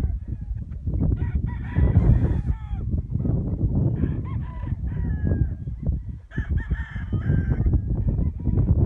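Domestic fowl calling in about four bouts of pitched cries, each about a second long, over a steady low rumble.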